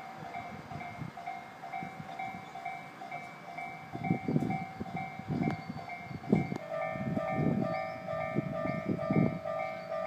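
Japanese level-crossing warning bell ringing a steady, repeating electronic ding, joined about seven seconds in by a second bell of a different pitch. Irregular low rumbling swells through the second half and is louder than the bells.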